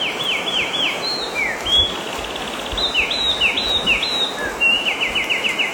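Songbirds chirping over a steady outdoor hiss: runs of quick, high, falling chirps, with a fast trill of repeated notes near the end.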